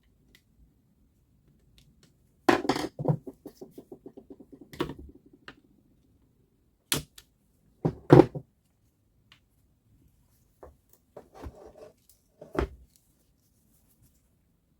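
Tools and metal parts being handled while a reciprocating saw is taken apart: scattered knocks and clicks, with a fast, even run of clicks lasting about two seconds near the start.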